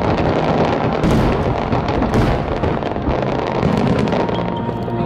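Fireworks display: a dense, continuous crackle of shells bursting and popping, with many sharp reports close together.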